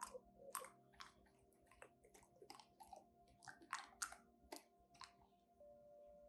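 An English cocker spaniel crunching ice cubes in its teeth: irregular sharp crunches, a few a second, that stop about five seconds in.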